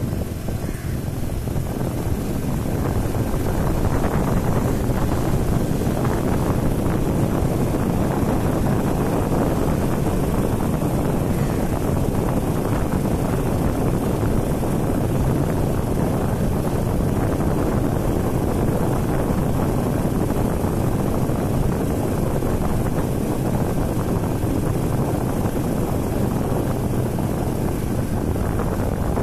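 TVS Apache RTR 180 motorcycle's single-cylinder engine running at a steady cruise, with wind noise on the microphone. It grows a little louder over the first few seconds, then holds steady.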